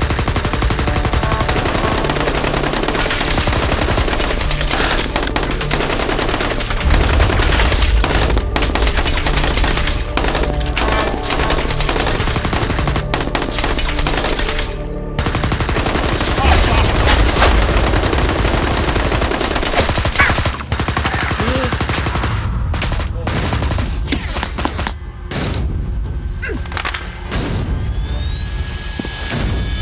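Rapid bursts of shots in quick succession, like machine-gun fire, from Nerf blasters being fired, over action music. The shooting is densest in the first two thirds and turns into more scattered shots near the end.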